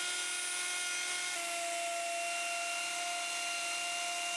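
Mafell Erika 85 table saw running with a steady high whine over a hiss; about a second and a half in the pitch drops a little, as the motor takes load while cutting resin-coated plywood.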